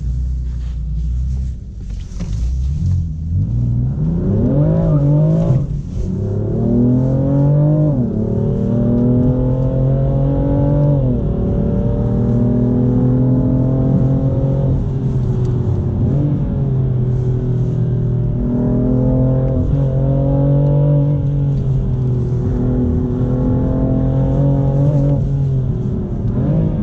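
BMW M4 Competition's twin-turbo straight-six, heard from inside the cabin, accelerating hard through the gears. Its revs climb and drop back at upshifts about six, eight and eleven seconds in, then it pulls steadily with small rises and dips in revs.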